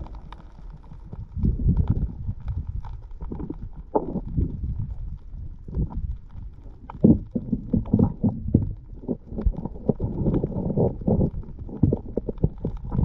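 Underwater recording: low surging rumble of water moving against the camera, with irregular clicks and knocks that come thicker in the second half.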